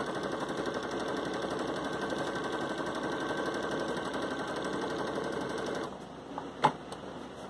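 Domestic electric sewing machine stitching a long basting stitch through cotton fabric: it starts abruptly, runs at a fast, even rate for about six seconds, then stops. A single sharp click follows about a second later.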